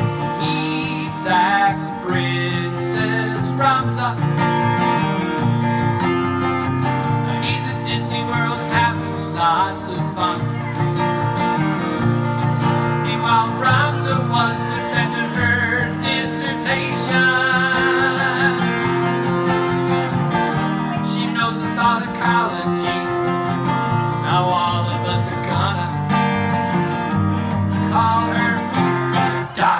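Steel-string acoustic guitar strummed in a steady rhythm while a man sings along, his voice wavering with vibrato on held notes.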